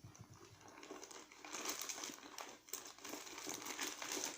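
Crinkling and rustling of a bag being rummaged through by hand: a dense run of small crackles that thickens about a second and a half in.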